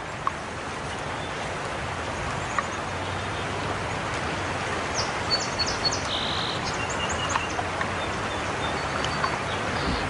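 Steady rush of a river flowing over a stony bed, with a few short, high bird chirps about halfway through.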